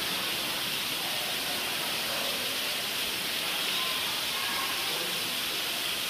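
Steady hissing room noise of an indoor animal exhibit hall, with faint distant voices.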